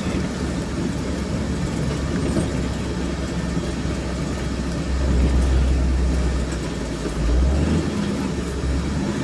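Engine and road noise heard from inside a moving vehicle's cabin, a steady low hum that swells about five seconds in and again briefly a couple of seconds later.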